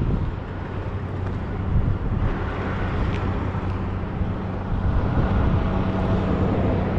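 Semi truck's diesel engine running at a steady, even pitch, with a constant low drone.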